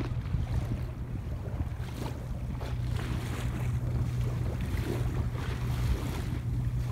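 Wind buffeting the microphone in a steady low rumble, over seawater lapping and sloshing against a stone seawall.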